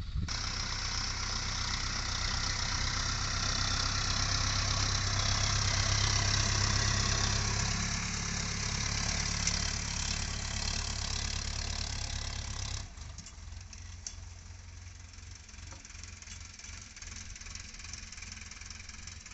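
Sonalika Sikander DI 750 III tractor's diesel engine running steadily under load as it drags a rear levelling blade full of soil in second high gear. The sound swells as the tractor passes close, then drops suddenly to a lower level about two-thirds of the way through.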